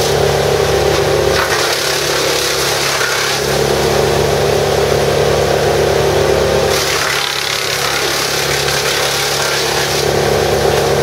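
Vermeer BC1000XL drum brush chipper running at working speed, chewing up branches fed into its infeed, with wood chips blowing out the discharge chute. A steady engine drone under a rougher chipping noise, dipping slightly a little past halfway.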